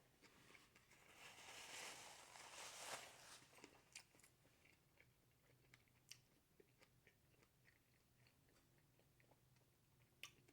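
Faint crunchy chewing and biting, loudest for a couple of seconds about a second in, then only scattered small mouth clicks.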